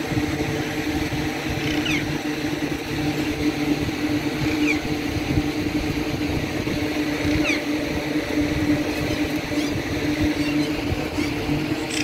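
A steady low mechanical hum with a constant drone, with a few short, high falling chirps every two to three seconds.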